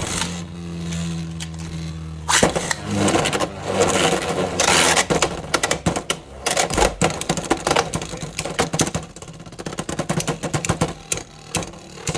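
Beyblade X spinning tops battling in a plastic stadium. A steady whir for about two seconds, then rapid clattering and clicking as the tops strike each other and the stadium walls.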